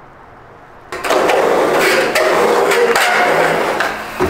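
Skateboard wheels rolling and carving inside a large pipe: a loud rumble with clicks that starts abruptly about a second in and dips briefly near the end.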